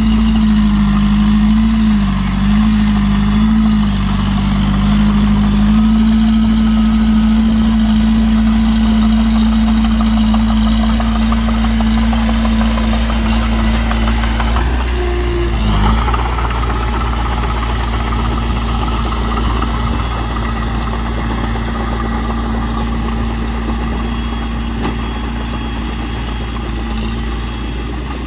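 Heavy diesel engine of earthmoving equipment running steadily, its pitch dipping briefly a few times about two to four seconds in and again about halfway through, after which a higher whine joins.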